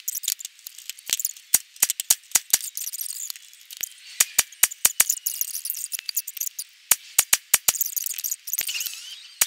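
Rapid, irregular string of sharp cracks, about two a second: 7.62x39 rifle fire from an AR-pattern pistol shooting groups.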